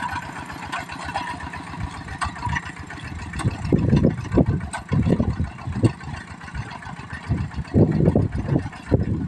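Kubota tractor engine running while tilling a field, its low sound swelling in loudness several times.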